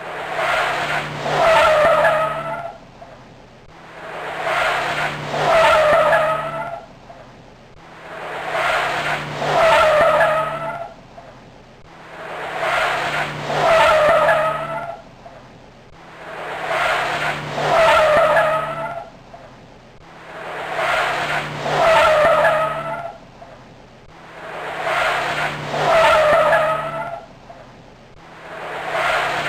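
Formula 1 race car sound effect played as a loop, repeating about every four seconds. Each time it builds to a loud wavering wail and then fades away.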